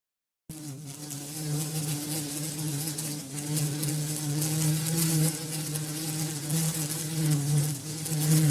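Bumblebee buzzing in flight: a deep, steady hum with a slightly wavering pitch, starting about half a second in and gradually getting louder.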